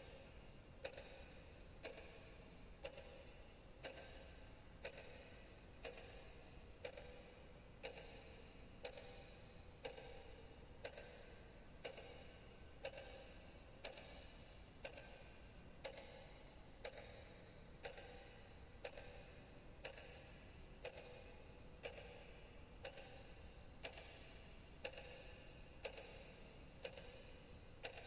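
Steady ticking, about one tick a second, each tick with a brief ring after it.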